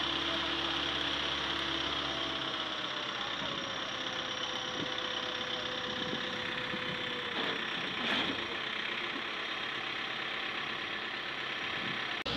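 A heavy vehicle's engine runs steadily on the move. A tone in it slides down in pitch over the first several seconds, the low rumble drops away a couple of seconds in, and there is a brief knock about eight seconds in.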